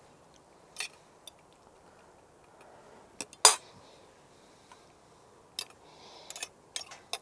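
Metal fork clicking and tapping against a stainless steel cake ring while pressing flaked salmon down into it: a handful of scattered sharp clicks, the loudest about three and a half seconds in and a quick cluster near the end.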